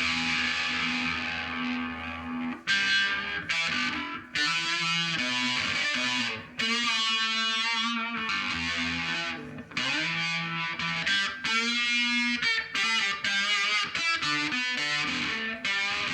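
Electric guitar played through distortion and effects pedals: held, fuzzy notes and short phrases, with a fast warble in the tone about halfway through.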